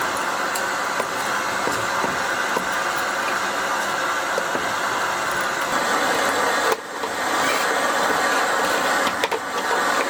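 Steady machine running noise, even and without a clear pitch, that breaks off briefly about seven seconds in and then starts again.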